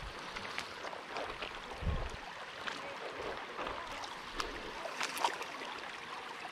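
Shallow river water running over a gravel riffle: a steady wash with scattered small clicks and splashes.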